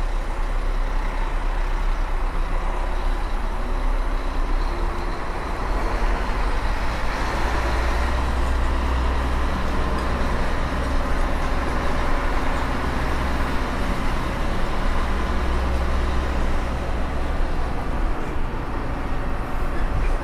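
Truck's diesel engine running steadily while driving slowly, a constant low drone with road rumble that swells a little twice.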